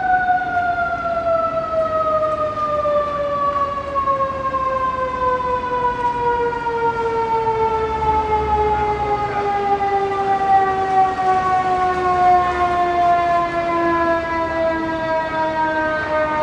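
Fire engine's mechanical rotor siren, of the Federal Q type, coasting down in one long, slow, steadily falling wail without winding up again.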